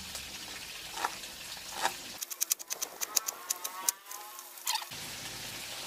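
Chef's knife slicing a torch ginger bud on a cutting board: a quick run of sharp taps, about five or six a second, from about two seconds in until near the end. A drawn-out pitched call sounds behind the taps, and chicken frying in oil sizzles faintly in the background.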